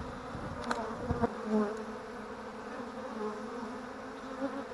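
Many honey bees buzzing around an opened hive, a steady, slightly wavering hum. A couple of light knocks about a second in.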